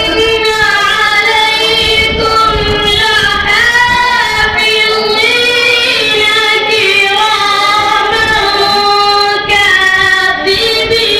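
A boy reciting the Quran in a melodic chanted style, holding long, drawn-out notes.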